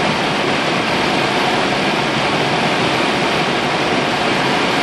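Steady rushing noise inside an Airbus cockpit on final approach: airflow over the aircraft and engine noise at approach power, even and unbroken.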